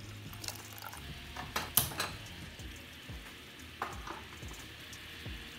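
Sugar and water boiling in a nonstick pan, a faint steady sizzle of bubbles: the syrup stage before it caramelises. Over it, metal cookware clanks, with a sharp knock about two seconds in and lighter clinks later.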